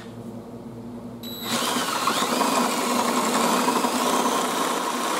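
Power drill running steadily from about a second and a half in, cutting the screw hole in an aluminium bracket a little deeper so the set screw's head will sit flush.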